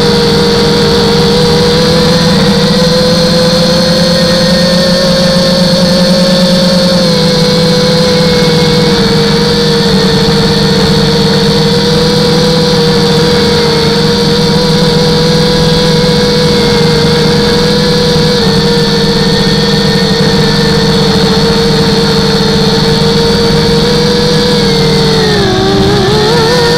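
250-size quadcopter's motors and propellers, a loud steady whine picked up by the onboard camera. Near the end the pitch dips and climbs back up as the motors slow and speed up again.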